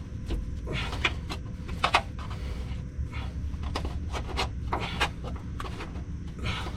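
Irregular scraping strokes of a hand tool against the underbody, the factory seam sealer being cut and scraped off where the hitch will mount, over a steady low rumble.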